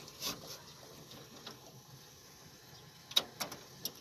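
Light metallic clicks from hand work on a tractor's hydraulic lift control lever linkage and its rod nuts, with a sharper click a little after three seconds.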